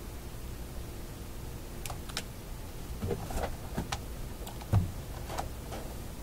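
Small clicks and knocks of test leads and clip leads being handled and clipped onto a wire, scattered through the second half, with one louder dull knock a little under five seconds in. A faint steady hum lies underneath.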